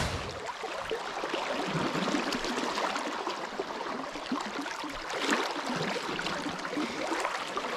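Steady rush of shallow river current rippling and gurgling over a stony bed.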